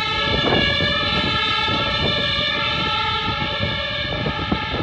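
Train rolling along the track with a steady, many-toned high whine and irregular clicks of wheels over the rails.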